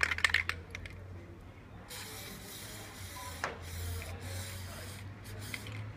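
An aerosol can of Plasti Dip rattling as it is shaken, then spraying in a steady hiss for about three seconds with a couple of brief breaks.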